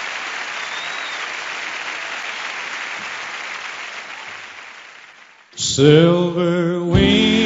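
Audience applause fading out over about five seconds after a song, then a country band starts a slow song's intro with sustained, wavering chords.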